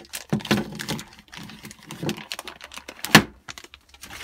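Clear plastic bag crinkling and crackling in irregular bursts as a small metal network switch is handled and unwrapped from it, with one sharp click or knock about three seconds in.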